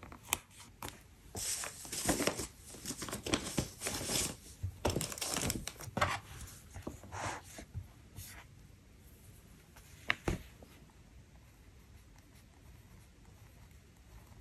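Sticker paper rustling and crinkling as a sticker is peeled from its sheet and pressed and rubbed down onto a thin planner page, in a run of short scratchy strokes for about eight seconds. A single sharp click comes about ten seconds in.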